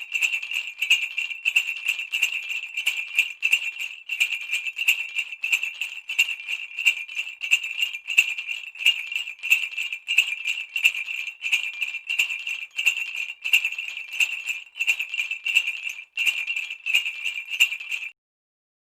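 Santa Claus sleigh bells shaken in a steady, even rhythm, jingling continuously. There is a brief break near the end, then the jingling stops abruptly.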